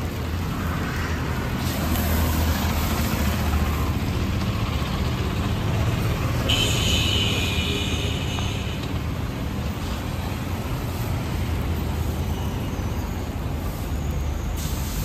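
Steady low rumble of street traffic. Around the middle a brief high-pitched squeal lasts about two seconds.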